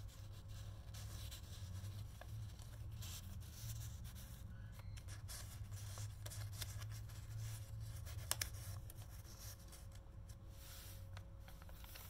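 Paper and card rustling and sliding as inserts are handled and a journal page is turned, over a steady low hum. There is one sharp tap about eight seconds in.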